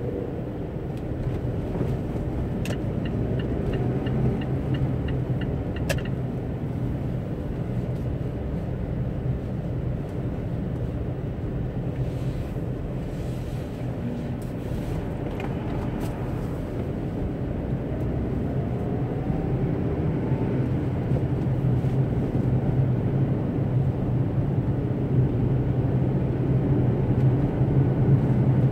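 A car driving on snow-covered roads, heard from inside the cabin: a steady low engine hum over tyre and road rumble, growing a little louder near the end. About three seconds in, a turn-signal indicator ticks for about three seconds, roughly three ticks a second, starting and stopping with a click.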